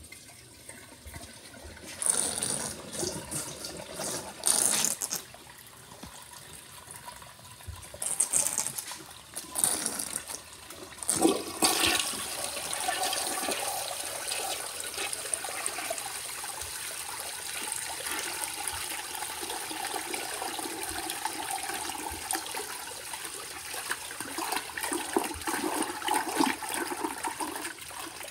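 A vintage toilet flushing: after a quiet moment, water gushes into the bowl in irregular surges, then from about twelve seconds in settles into a steady rush as the water swirls around the bowl.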